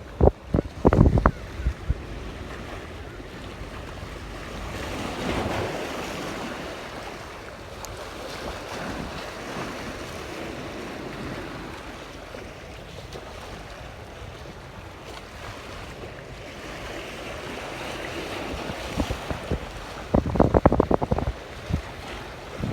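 Wind buffeting the microphone over the wash of the sea, swelling and easing. A quick cluster of knocks and thumps comes right at the start and another near the end.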